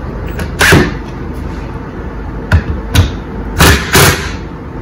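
Cordless drill driving screws into a wooden mount in short bursts: five brief, sharp knocks, the last two close together near the end. The screws are being snugged gently so they don't pull the swivelling light out of position.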